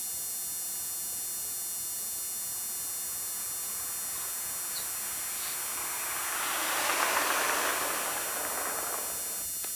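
A car on a slushy street swells up about six seconds in and fades again over about three seconds, over a steady electrical hum and hiss.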